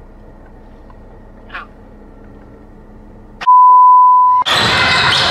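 Low, steady car-cabin hum, then about three and a half seconds in a loud, steady, high single-pitch beep lasting about a second: the test tone that goes with TV colour bars. It cuts off into the noise of an indoor basketball game.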